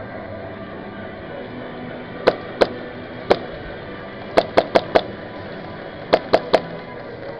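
Airsoft gun shots: about ten sharp cracks, three at first, then a quick burst of four, then a burst of three. Background music plays throughout.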